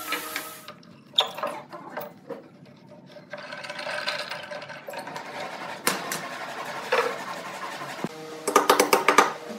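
Workshop hand-tool sounds on wooden boards: scattered sharp knocks and clicks, with a quick run of clicks near the end.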